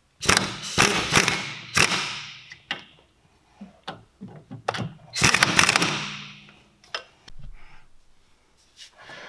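Cordless impact wrench with a socket running in the brake caliper bracket bolts on a Vauxhall Corsa C front hub, snugging them down before they are torqued to 100 newton meters. Two bursts of rapid hammering, the second starting about five seconds in.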